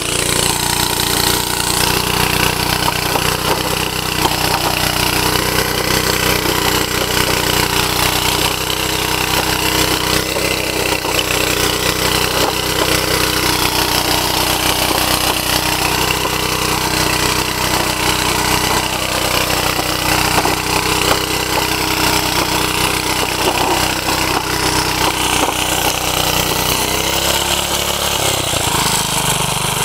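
1949 Bready walk-behind tractor's small gasoline engine running steadily and loudly under load as it pulls a disc harrow through the soil. Near the end the engine note dips briefly and comes back up.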